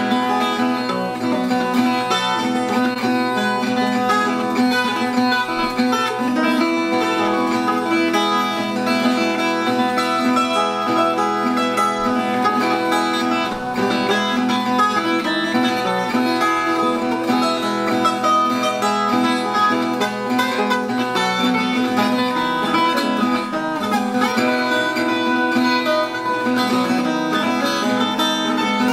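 Instrumental music on a plucked acoustic guitar, played steadily with no singing.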